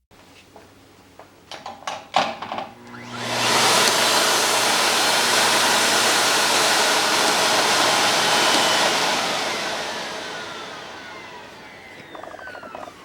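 Miele S8310 canister vacuum cleaner switched on after a few handling clicks: the motor spins up to a loud, steady rushing run, then is switched off and winds down with a falling whine.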